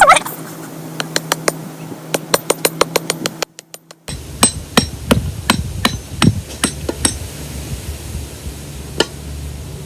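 Hammer striking a rock over and over, sharp clacks in a quick, irregular run, knapping at it to make its edge sharper. The sound cuts out briefly about a third of the way in, and then the strikes carry on more sparsely.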